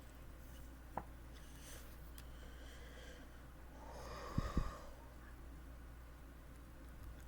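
A person's short, breathy sound about four seconds in, with two sharp low thumps inside it, against faint room tone; a faint click comes about a second in.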